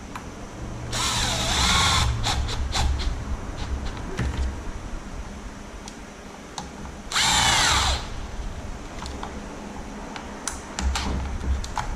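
Cordless drill driving small bolts into an RC truck chassis: two short runs, about a second in and again about seven seconds in, the motor's pitch rising and falling, with small clicks of parts being handled in between.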